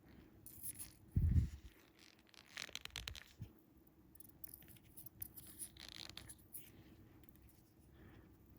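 Small handling noises of fishing line and hooks being worked by hand: faint rustles and scrapes, a soft thump about a second in, and a few quick clicks near the middle.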